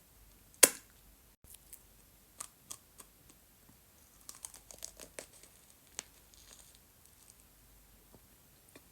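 Scattered crinkling and tearing sounds of marshmallow being handled before it is eaten: a sharp snap about half a second in, then light crackles, with a denser run of them a little over halfway through.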